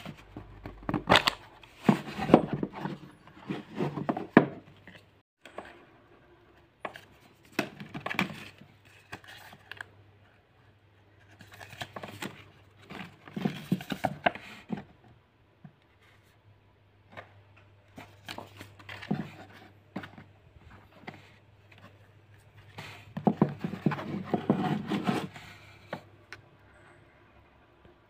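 Handling noise from unboxing a watch: a cardboard box being opened and a paper instruction leaflet unfolded, with rustling, scraping and small taps in irregular bursts and short quiet gaps between them.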